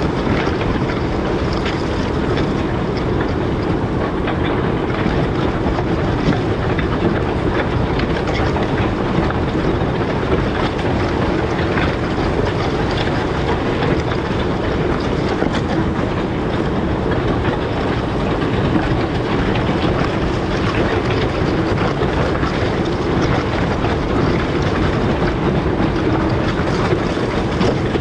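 Large farm tractor working a field under load: a steady, loud engine and running-gear noise with no break.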